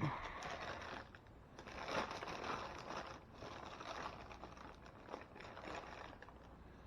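Faint rustling and scraping handling noises in irregular bursts, with a few light clicks, as parts are worked by hand in a tight engine bay.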